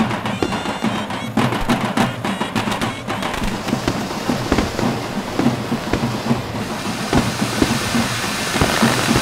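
Wedding band music with drums and percussion, and from about three seconds in the hissing, crackling spray of ground fountain fireworks rising over it.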